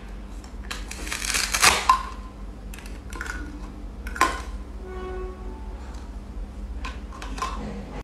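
Plastic velcro cutting toys being cut apart with a toy knife on a plastic cutting board: a rough rip of velcro pulling apart with sharp plastic clacks, loudest about a second and a half in. A single sharp plastic clack about four seconds in, and a few lighter clicks near the end.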